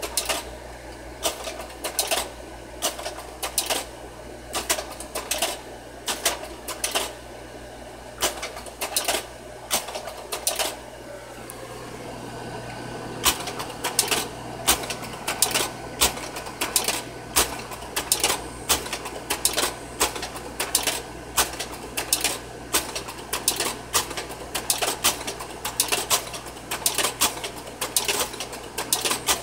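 Kodak Carousel 5600 slide projector changing slides one after another, its slide-change mechanism clacking about once or twice a second over the steady hum of the running projector. The hum grows louder about twelve seconds in.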